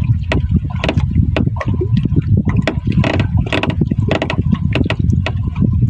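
Water slapping and splashing against the hull of a small boat rocking on choppy water, over a steady low rumble.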